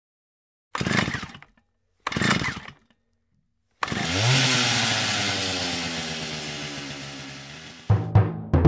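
Opening of a rock music track: two short crashing hits, then a distorted electric guitar chord that rings out and slowly fades, with sharp drum hits near the end.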